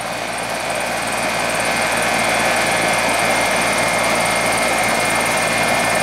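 Comfortmaker AG042GB1 3.5-ton condensing unit running: steady whoosh of the condenser fan over the hum of the Copeland compressor, with a faint steady high whine. It has just started on replacement fuses and runs normally, growing slightly louder over the first two seconds and then holding steady.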